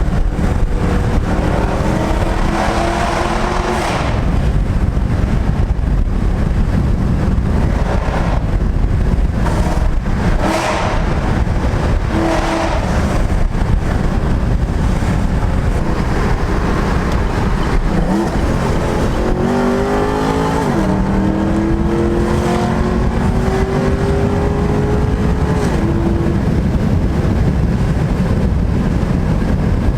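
Straight-piped Chevy SS (Holden Commodore) V8 exhaust running loud under way, pulling up through the revs. The pitch drops sharply at gear changes, about two-thirds of the way through and again a few seconds later.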